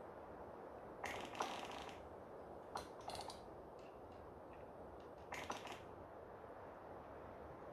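Conifer trees creaking as they sway in the wind: three short bouts of rapid, rattling creaks about one, three and five and a half seconds in, over a steady rush of wind.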